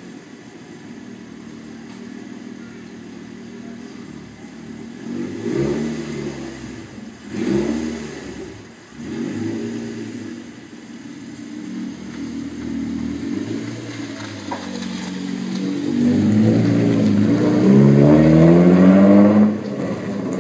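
Nissan 370Z V6 with long-tube headers and a 3-inch single exhaust idling just after starting, with two short revs about five and seven seconds in. Near the end it pulls away under acceleration, the engine note rising in pitch and getting louder, then dropping off suddenly.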